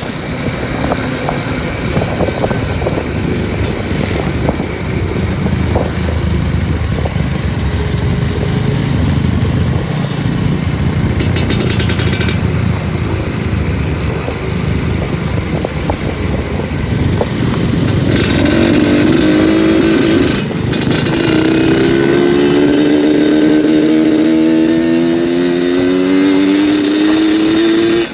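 Two-stroke trail motorcycle engine running at low revs with rough clatter. About two-thirds of the way in it climbs steadily in pitch as the bike accelerates, with one brief drop partway through the climb.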